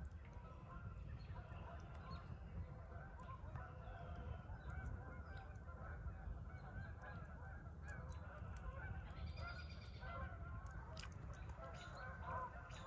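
A distant flock of birds calling continuously, many faint overlapping calls, one louder call near the middle, with scattered sharp crackles from a campfire.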